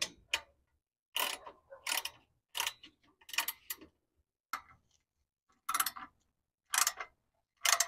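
Socket ratchet clicking in short runs, about one a second, as the bolts of an exhaust pipe clamp are tightened.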